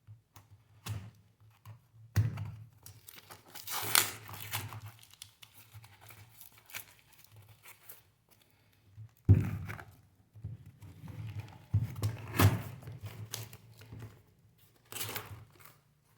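Packaging being torn and crinkled by hand as a tightly packed box is worked open, in irregular stretches, with a few sharp knocks of the box or its contents, the loudest about nine and twelve seconds in.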